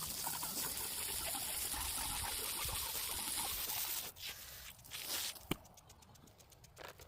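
Garden hose spraying water onto brickwork: a steady spray that stops about four seconds in, followed by one short spray and a sharp click.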